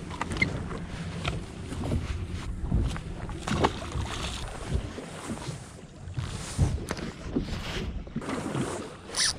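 Wind buffeting the microphone and water slapping against a small boat's hull at sea, with a short splash about three and a half seconds in as a small striped bass drops back into the water.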